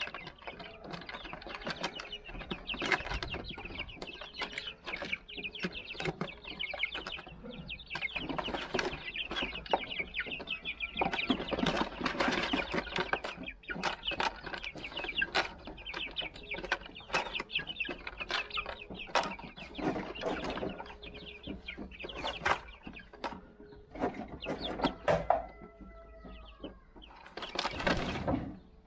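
A flock of young Silver Laced Wyandotte chickens cheeping continuously as they feed, with many sharp taps of beaks pecking. There are a few falling peeps near the end and one louder rustling burst just before the close.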